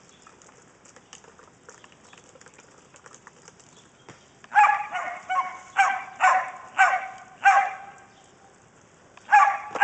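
A dog barking: a run of about five high-pitched barks from about halfway through, then one more bark near the end.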